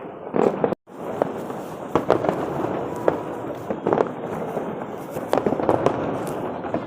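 Fireworks show bursting: an irregular run of sharp bangs and crackles over a continuous din of explosions. The sound drops out for an instant just under a second in, then carries on.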